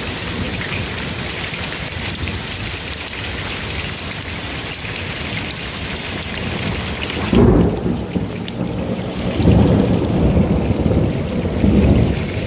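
Heavy rain pouring steadily, then a little past halfway a sudden loud clap of thunder that rolls on in deep rumbling waves, swelling twice more before it ends.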